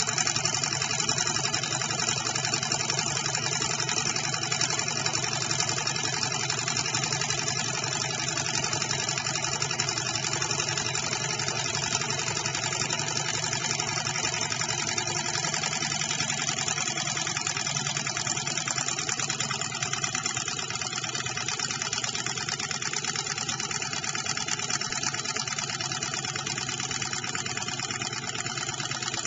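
Small model hot-air Stirling engine, fired by an esbit solid-fuel tablet, running steadily with a fast, even mechanical clatter from its flywheel and linkage.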